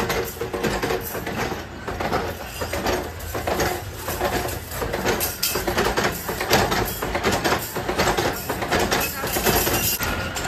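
Steel spoon-making machinery running, with steel clinking and clattering in many irregular knocks.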